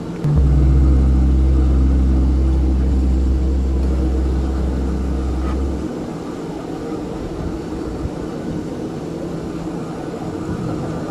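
A deep, steady hum starts suddenly just after the start and cuts off about six seconds in, over constant background noise.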